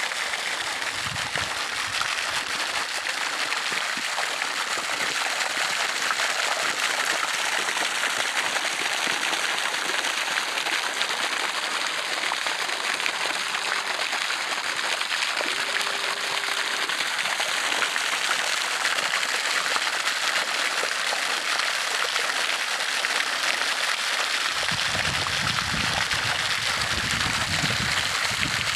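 Water jet spraying up over a hole in a frozen pond's ice to aerate it, the spray pattering back down onto the open water and snow with a steady, rain-like hiss.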